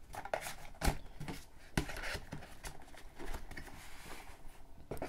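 Paper leaflets being slid into a card sleeve and a smartphone's cardboard retail box and tray being handled on a table: light rustling of paper and card, with a few soft knocks as the pieces are set down.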